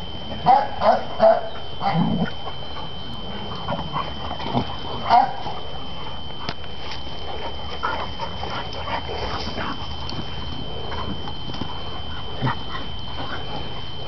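Dogs play-fighting, with short vocal sounds in brief clusters: a quick run of three about half a second to a second and a half in, and another near five seconds.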